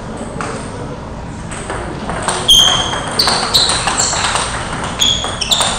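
Table tennis balls clicking off bats and tables during rallies on several tables. The first two seconds are fairly quiet, then from about two and a half seconds in comes a quick, irregular run of sharp pings.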